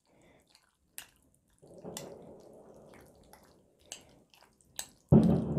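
A metal utensil stirring a mayonnaise-dressed salad of shrimp and chopped fruit in a glass bowl: a few sharp clicks against the glass with soft wet squishing between them, then a louder, rougher noise near the end.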